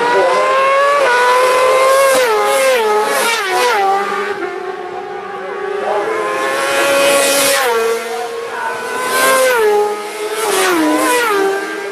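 Racing motorcycle engines at high revs: the pitch drops in quick steps several times as the riders shift down for a bend, then climbs again as they open the throttle. More than one bike is heard, one after another.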